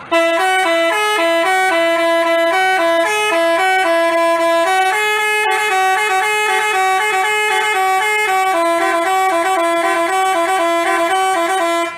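Basuri telolet bus horn playing a melody: a quick run of bright, stepped horn notes that stops abruptly near the end.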